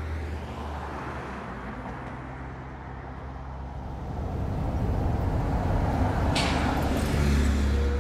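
Motor-vehicle traffic: a low engine drone and road noise that swell louder about halfway through, with a short sharp hiss a couple of seconds later.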